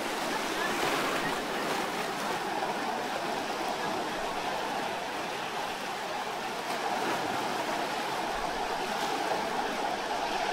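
Steady wash of sea water surging and running over lava rocks at the shoreline, an even rushing with no clear bird call heard.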